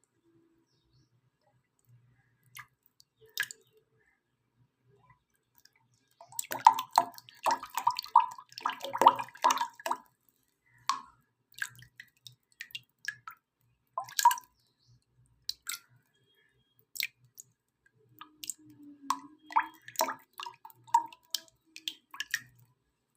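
Kinetic sand being squished, giving soft wet-sounding crackles: a few single ones at first, a dense run from about six to ten seconds in, then scattered ones and another cluster near twenty seconds.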